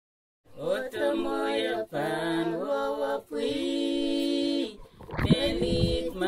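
Singing voice starting about half a second in, holding long notes and sliding between them in phrases of about a second and a half. About five seconds in, a fuller, deeper accompaniment with beats joins the voice.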